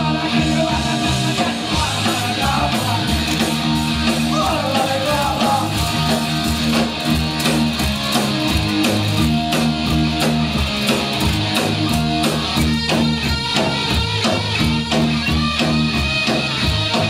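Live punk rock band playing loud amplified music: electric guitar, bass and drums driving a steady beat.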